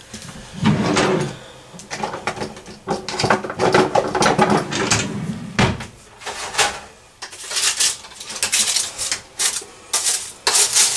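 Kitchen clatter: a run of knocks, clicks and scrapes of cookware being handled, busiest in the second half.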